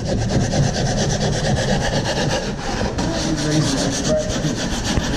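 Fast, even rasping scrape, many strokes a second.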